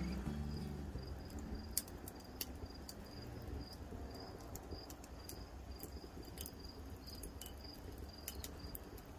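Background music fading out, then a cricket chirping faintly: short, high, evenly spaced chirps that keep on steadily, with a few scattered faint clicks.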